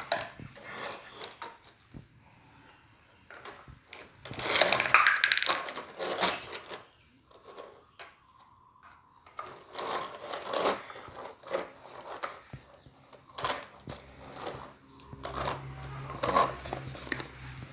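Plastic toy truck being pushed and handled on a tiled floor: irregular knocks, rattles and scrapes of plastic on tile, loudest about four to six seconds in. A low steady hum comes in near the end.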